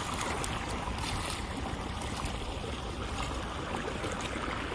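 Irrigation water from a pump set flowing steadily across a dry ploughed field, flooding it before sowing.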